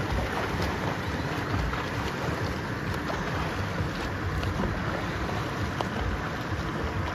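A swimmer's arm strokes splashing in river water, under steady wind rumble on the microphone.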